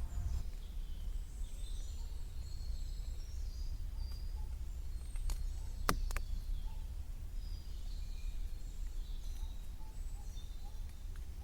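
Several small birds chirping and calling over a steady low rumble, with two sharp ticks about five and six seconds in.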